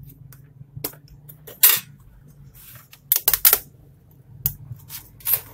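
Asus A43S laptop keyboard being pried out of its frame: a series of sharp plastic clicks and snaps as its retaining latches give way under a thin metal pry tool, the loudest about one and a half seconds in and a quick cluster of three around three seconds in.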